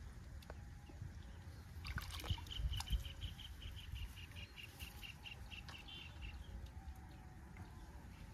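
A bird calling a rapid run of short, repeated high notes, about four a second, for a few seconds, over a steady low outdoor rumble, with a few low thumps around two to three seconds in.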